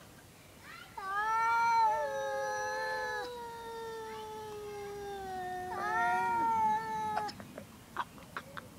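Cats caterwauling: long, drawn-out yowls that slowly sink in pitch over about six seconds, with two voices overlapping for part of it. A few short clicks follow near the end.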